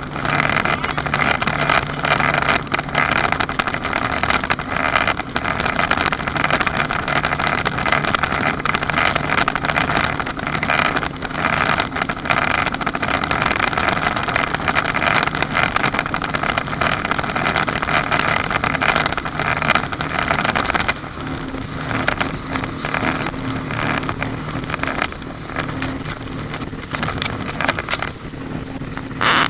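Speedboat engines running at high speed, with water rushing along the hull. About two-thirds of the way through the engine note shifts and the sound gets slightly quieter.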